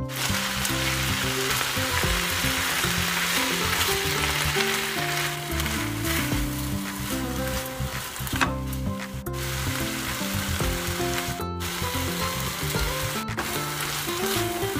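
Squid and bean sprouts sizzling in a hot wok over high heat as they are stir-fried and turned with a silicone spatula. Soft background music runs underneath.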